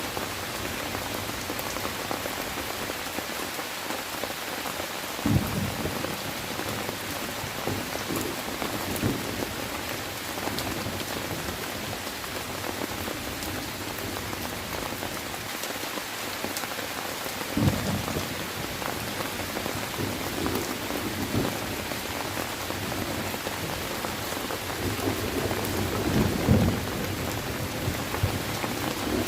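Steady rain falling, with low rolls of thunder about five seconds in, again around eighteen seconds, and a longer rumble near the end.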